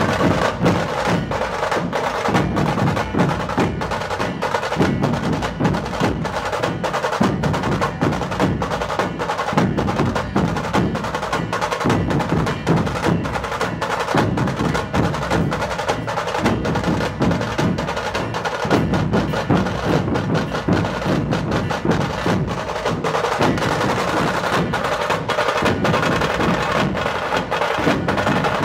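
Dhol-tasha ensemble drumming: a group of large barrel-shaped dhols pounding a repeating rhythm under a fast, crackling roll from the stick-played tasha drums. The drumming is loud and unbroken throughout.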